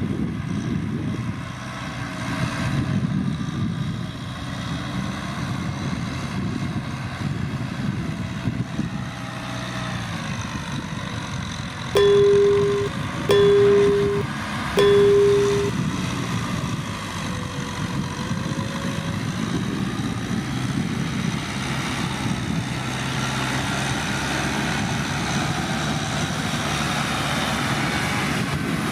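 Kubota M6040SU tractor's diesel engine running steadily under load while ploughing. About twelve seconds in, a horn sounds three times, each blast about a second long and louder than the engine.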